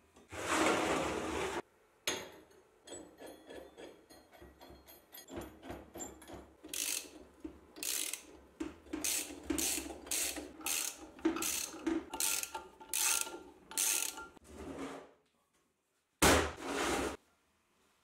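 Hand ratchet wrench tightening a bolt inside a welded steel box. First comes a fast run of clicks as the nut is spun down, then about a dozen separate ratcheting strokes, each a short burst of clicks. A short rasp comes at the start, and another near the end as the steel box is shifted on the workbench.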